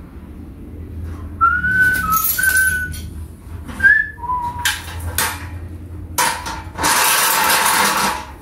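A few short whistled notes, each held at one pitch, mixed with loud clanks and rattling from the metal treadle stand of a sewing machine as it is handled, the longest rattle coming near the end.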